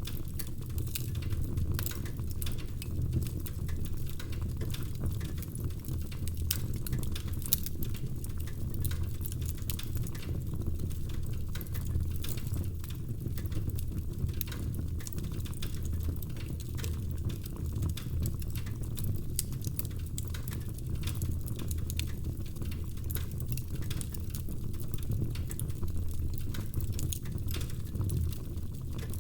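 Wood fire burning in a fireplace: a steady low rumble of flames with many small, sharp crackles and pops from the burning logs.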